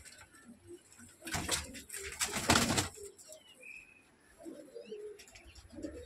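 Domestic pigeons in a loft cooing softly, low notes that come mostly in the second half. Two short bursts of wing flapping about a second and a half and two and a half seconds in are the loudest sounds.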